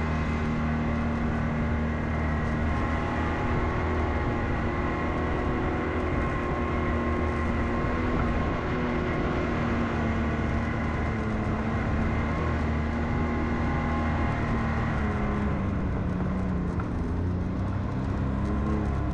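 Off-road vehicle engine running steadily as it drives along a dirt trail. Its pitch dips and recovers about three quarters of the way through.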